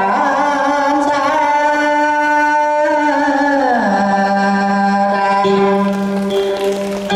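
Vọng cổ singing with instrumental accompaniment: long held notes that slide slowly down a little before the midpoint, then settle on a lower held note.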